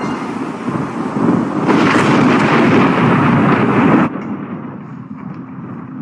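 Thunder rumbling, swelling louder about two seconds in, then cut off abruptly about four seconds in. A much quieter low steady hum follows.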